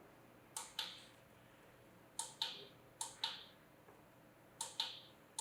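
Buttons on a sunrise alarm clock being pressed to set the time: four presses, each a quick double click of press and release.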